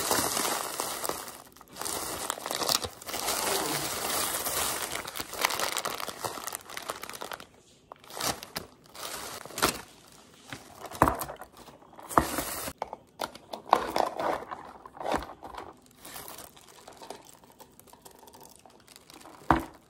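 Thin plastic takeout bag rustling and crinkling as it is opened and the food packages are taken out. It is steady for the first several seconds, then comes in short separate crinkles as the paper bags and burger wrappers are handled.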